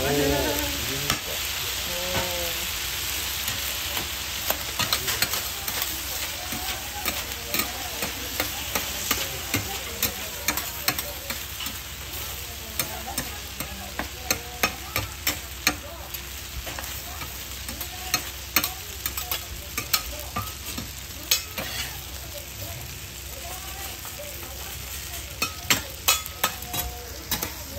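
Yakisoba noodles, cabbage and egg sizzling on a hot iron teppan griddle, with the sharp clack and scrape of metal spatulas chopping and turning them. The taps come in irregular clusters over a steady sizzle.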